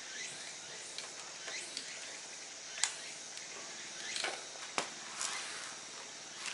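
A few sharp clicks and knocks of gloved hands handling a model engine buggy and its radio transmitter, the loudest a little under 3 seconds in and near 5 seconds; the engine is not running. Faint short falling chirps sound in the background.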